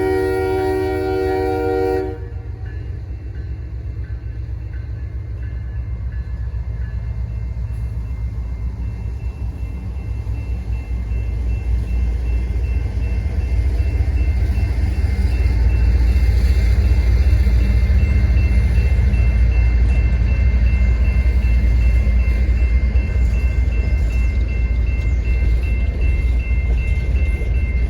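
A diesel freight locomotive's multi-chime air horn sounds a chord that cuts off about two seconds in. The low rumble of the locomotives' diesel engines follows, building up from about ten seconds in as the train draws close and then holding loud. A faint, steady high whine runs under the rumble in the second half.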